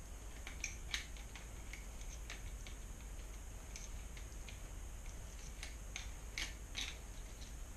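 Small, irregular clicks and ticks of bicycle shifter parts being handled and fitted by hand, with a few sharper clicks about a second in and twice near the end.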